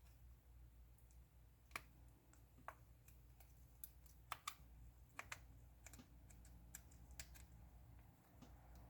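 Faint, irregular small clicks and ticks of repair tools on a smartphone, a few sharper ones about two and four and a half seconds in, as the battery is pried out of the phone.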